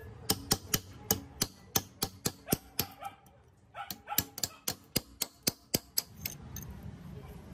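Hammer blows on a steel chisel driven into the seam of a rusty gearbox housing to split it apart: sharp metallic knocks, about four a second, in two runs with a short break a little before the middle.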